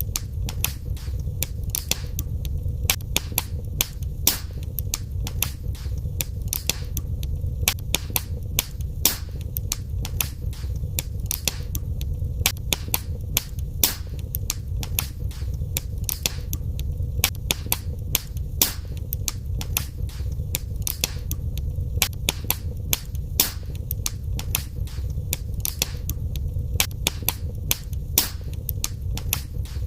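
Wood fire burning in a fireplace: many irregular sharp crackles and pops over a steady low rumble of the flames.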